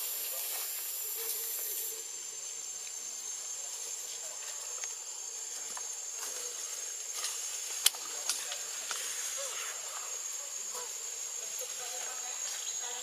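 A steady, high-pitched insect drone, with a higher hiss that drops out about two seconds in. A single sharp click comes near eight seconds in.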